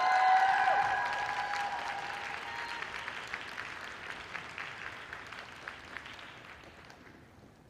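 Audience applauding, with some cheering voices at the start; the applause is loudest just after it begins and dies away over several seconds.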